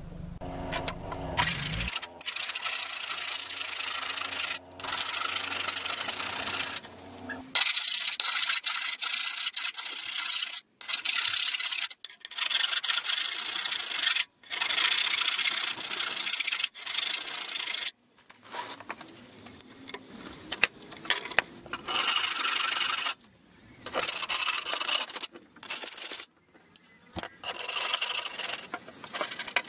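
Steel clamp bar being scraped with an abrasive, likely to clean the burrs from its freshly cut holes. The rasping comes in repeated spells of a couple of seconds, each stopping abruptly.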